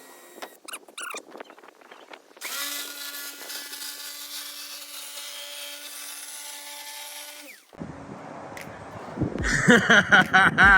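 Power drill running steadily for about five seconds as it bores a starter hole through a fiberglass van roof, then stopping abruptly. Near the end a louder, rapidly pulsing rasping sound takes over.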